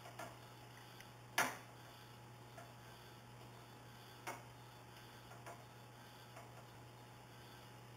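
Curling iron being handled while hair is wound around its barrel: a few scattered light clicks and taps, the sharpest about one and a half seconds in and another just after four seconds, over a faint steady low hum.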